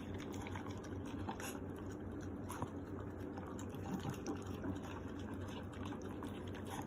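French bulldog eating cake: small wet licking and chewing smacks, over a steady low hum.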